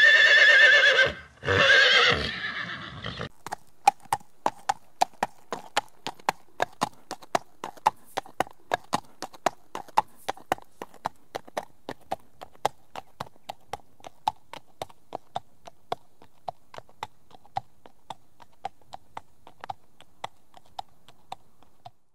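A horse whinnying in two loud, wavering calls, then hooves clip-clopping in an even rhythm of about three beats a second that fades toward the end.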